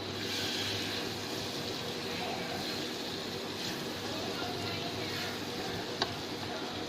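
Butter sizzling as it melts in a hot pan, a steady hiss, with one sharp click about six seconds in.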